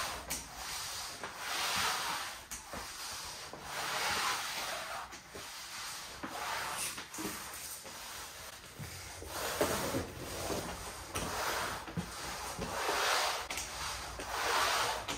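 Bona spray mop's pad rubbing back and forth across a hardwood floor in repeated swishing strokes, roughly one every one to two seconds.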